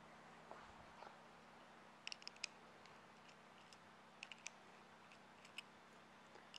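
Near silence broken by faint, sharp clicks of the hoist's lifting-strap hardware being handled as the strap is readjusted by hand: a quick cluster about two seconds in and a few more later on.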